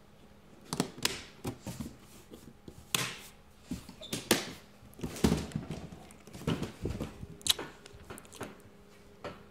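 A dozen or so short knocks and thumps at irregular intervals, from about a second in.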